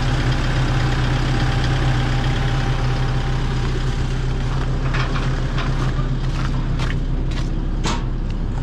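Excavator's diesel engine idling steadily, with a few short clicks and knocks near the end.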